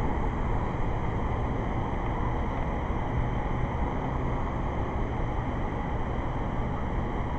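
Steady, unbroken rushing noise with a low roar underneath, holding an even level throughout.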